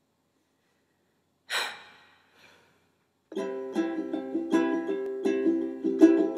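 Start of a song: a short breathy rush about a second and a half in, then picked acoustic strings begin a steady pattern of notes about three seconds in.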